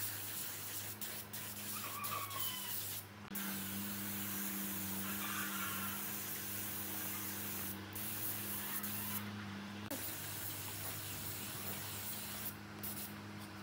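Gravity-feed compressed-air spray gun hissing as it sprays finish onto a wooden vase, the hiss breaking off for a moment about four times as the trigger is let go. A steady low hum runs underneath.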